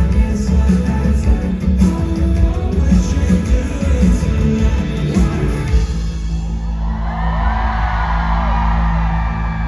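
Live rock band playing loudly with drums and singing. About six seconds in the drumming stops and a held chord rings on while the audience cheers and screams.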